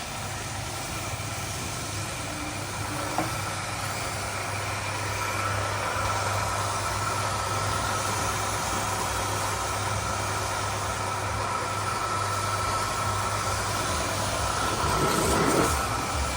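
A heavy diesel engine running steadily at an even pitch, with a faint high whine over it. The sound swells briefly near the end.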